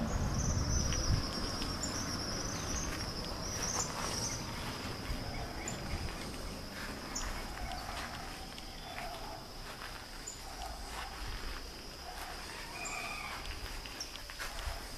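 Outdoor rural ambience: a steady high insect drone with scattered bird calls, and a brief low rumble at the very start.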